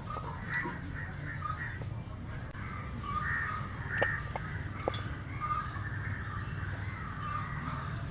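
Crows cawing repeatedly over a steady low hum, with a few sharp clicks about four to five seconds in.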